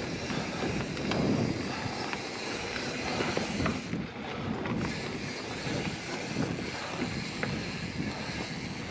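Wind rushing over the microphone on a moving hardtail mountain bike, with the tyres rolling over the dirt trail and a few light clicks.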